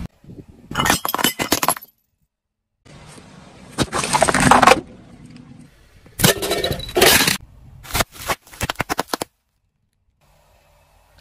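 Objects cracking and crunching under a car tyre as it rolls over them: four separate bursts of crushing, each with sharp snaps and clinks, with short quiet gaps between.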